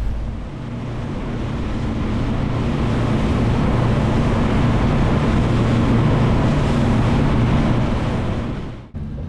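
Twin outboard motors running steadily at speed on a planing boat, with a low hum under the rush of wind on the microphone and hull spray. The sound cuts off suddenly just before the end.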